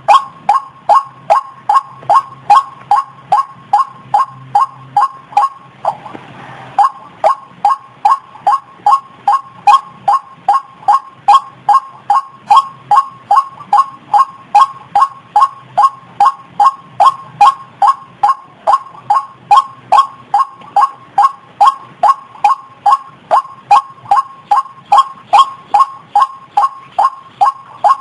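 White-breasted waterhen (ruak-ruak) calling over and over, an even run of short notes at about two a second, broken once about six seconds in by a brief hiss. This is the kind of recording played as a lure call to draw the birds in.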